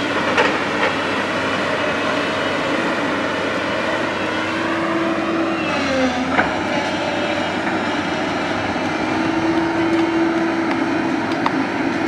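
JCB tracked excavator's diesel engine working under load, with a steady drone from the engine and hydraulics that dips briefly in pitch about halfway through, and a couple of sharp knocks.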